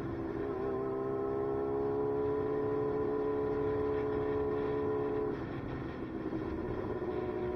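Motorcycle engine running at a steady cruising speed, heard from the rider's own bike with wind noise rushing over the microphone. About five seconds in the engine note drops a little lower and quieter as the throttle eases off.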